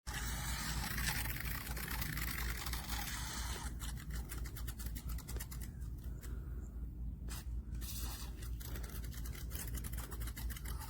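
Mini RC boat's small electric motor and propeller whirring on the water, with a low steady hum underneath and a thin high whine.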